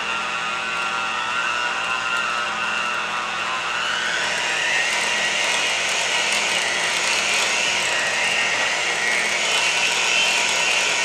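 Cuisinart electric hand mixer running steadily, its beaters whipping softened cream cheese and sweetener in a glass bowl. The motor's whine rises a little in pitch about four seconds in, then holds.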